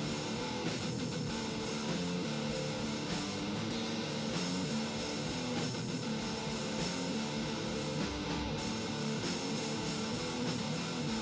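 Background rock music with guitar, playing steadily throughout.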